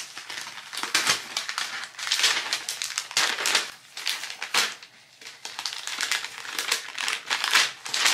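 Kraft paper mailer envelope rustling and crinkling as it is handled and opened by hand, in irregular spells with a brief lull about five seconds in.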